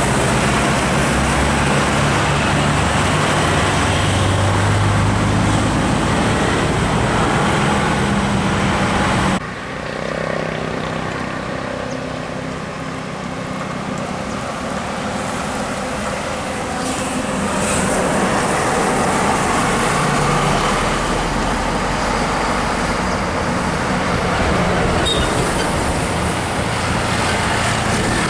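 Road traffic with heavy vehicles such as tour buses driving past on a climb, engines and tyres loud at first. About nine seconds in the sound cuts off abruptly to quieter, steady passing traffic.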